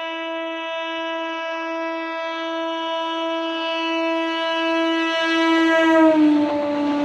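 EMU local train's horn sounding one long, steady blast as the train approaches, growing louder. About six seconds in its pitch drops slightly as the train passes, and the rush of the coaches running by comes in.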